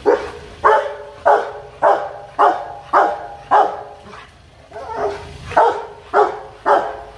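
Rottweiler barking loudly and repeatedly, about two barks a second, with a short pause about four seconds in: demanding, threatening barking from an aroused, aggressive dog.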